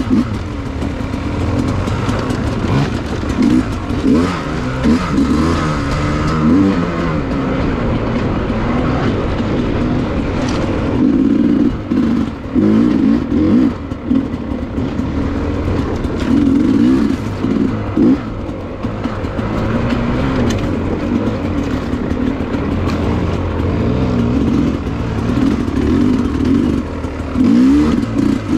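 Dirt bike engine running under way, its pitch rising and falling repeatedly as the throttle is worked.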